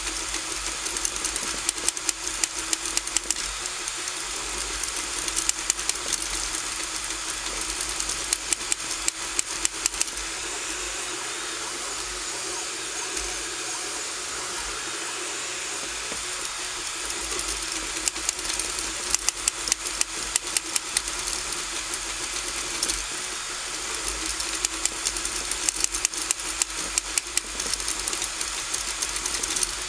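RigidBot 3D printer running a print, its stepper motors driving the print head back and forth. A steady hiss and hum run throughout, broken every few seconds by runs of rapid clicking ticks, each run lasting a second or two.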